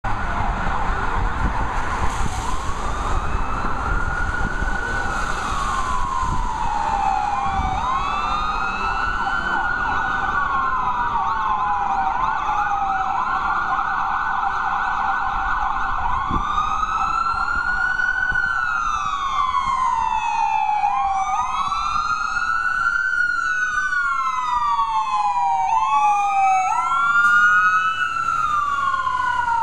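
Wailing sirens of two 2007 Spartan Gladiator/Smeal fire trucks, a pumper and a ladder truck, each rising and falling about every five seconds. Near two-thirds of the way in, a second siren joins out of step with the first, and they grow a little louder near the end as the trucks pass, over a low rumble of traffic.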